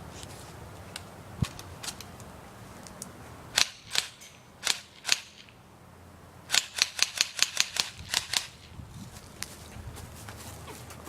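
Airsoft guns firing: four single sharp shots about half a second apart, then a quick string of about ten shots at roughly six a second, with fainter scattered shots around them.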